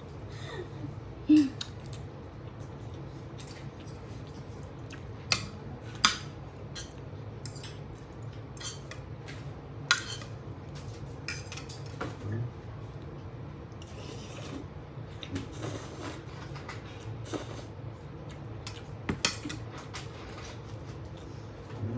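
Cutlery clinking against a bowl during a noodle meal: scattered sharp clinks every few seconds over a steady low hum.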